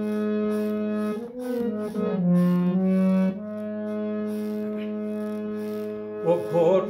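Harmonium playing an interlude in a devotional bhajan: held reedy notes that step from pitch to pitch over a steady drone. A man's singing voice comes back in near the end.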